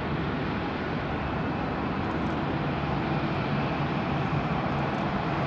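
Airbus A350-900's Rolls-Royce Trent XWB turbofan engines at high thrust as the airliner climbs away after takeoff: a steady jet rumble with a low drone underneath.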